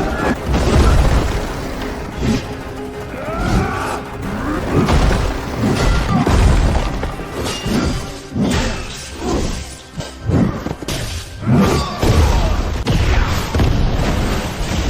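Music mixed with a rapid series of crashes, shattering and low booms, one hit after another.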